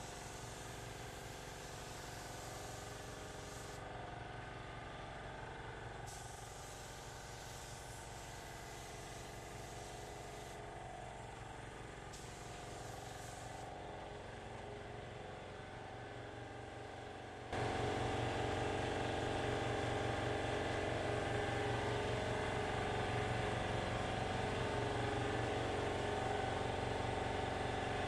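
Compressed-air paint spray gun hissing in passes a few seconds long, stopping and starting several times as clear coat goes on. Under it is a steady machine hum with a low pulse, which gets louder about two-thirds of the way through.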